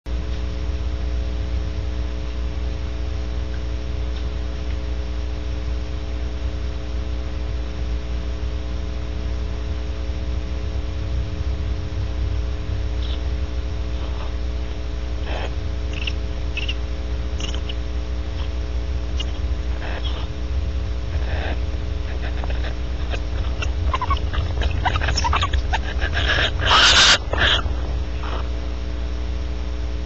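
Barn owls calling during mating: scattered short chirps and clicks that build to a loud, harsh screeching burst near the end, over a steady electrical hum.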